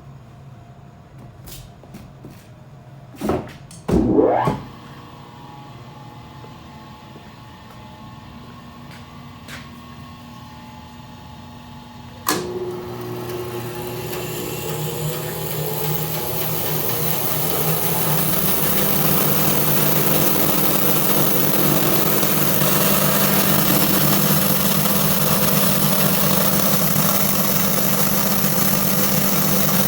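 Two loud knocks about three and four seconds in. Then a switch clicks about twelve seconds in and the Tannewitz 24-inch bandsaw's 2-horsepower direct-drive motor starts. The heavy wheels and blade come up to speed over several seconds with a rising whine, then run on steadily.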